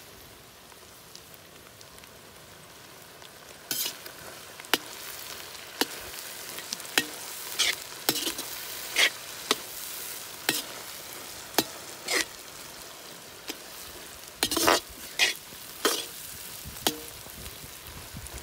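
Shredded vegetables sizzling in a large black wok just after soy sauce goes in. From about four seconds in, a steel ladle scrapes and clacks against the wok as they are tossed, in irregular strokes about once a second.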